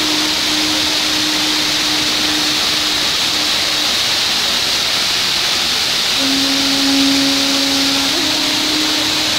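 Steady rush of a waterfall spilling down a rock face into a pool. Soft background music plays over it, long low notes that change pitch every few seconds.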